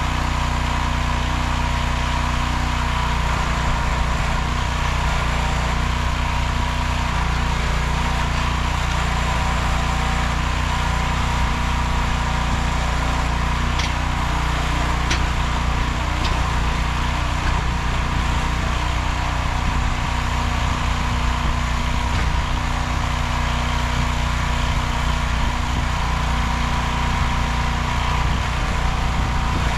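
Small 15 hp gasoline engine of a towable backhoe running steadily at a constant speed, with a few light clicks near the middle.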